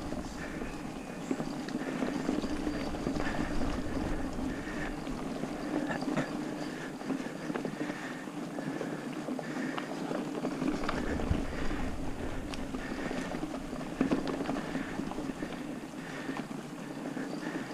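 Mountain bike rolling fast along a dirt singletrack: steady tyre and wind noise with frequent rattles and knocks from the bike over bumps and roots.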